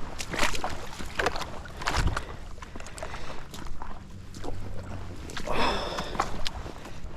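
Irregular water splashing and sloshing, with a longer splash about five and a half seconds in.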